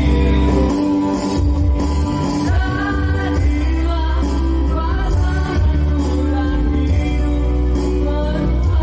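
A man singing a song into a handheld microphone over instrumental accompaniment with a strong bass line.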